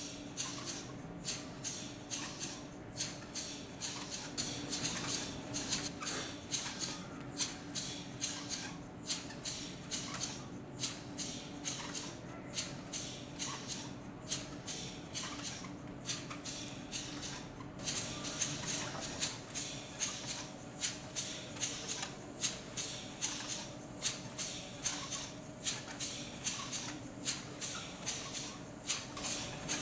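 LEGO pneumatic-cylinder engine running on nitrogen gas boiling off from liquid nitrogen, puffing and clicking in a quick, even rhythm of about two to three strokes a second as it drives the plastic walking legs.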